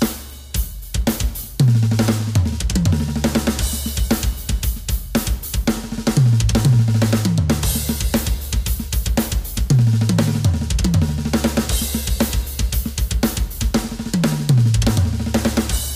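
Roland electronic drum kit played in a fast fill built from three-note groups of hand strokes and double bass-drum kicks (sticking RLL KKL RLL RLL). It runs in repeated cascades of tom hits falling in pitch, over bass drum and cymbals.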